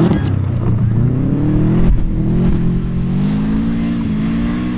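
Subaru Impreza's flat-four boxer engine revving hard while the car drifts on loose dirt with its wheels spinning. The engine note rises and falls, with a short break about two seconds in.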